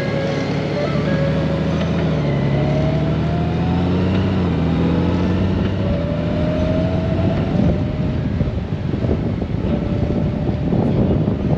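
Honda Gold Wing motorcycle riding along, its engine note rising and falling as the speed changes. From about eight seconds in, wind and road noise take over.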